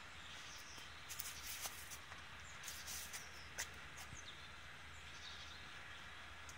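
Faint outdoor ambience with a few small bird chirps and some scattered clicks and rustles, busiest between about one and four seconds in.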